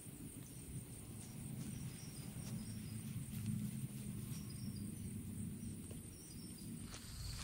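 Insects trilling steadily at a high pitch over a low outdoor rumble, with a few faint ticks and short chirps.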